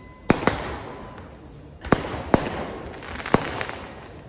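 Temple festival fireworks exploding: about five sharp bangs in quick succession, each trailing off in a rolling echo.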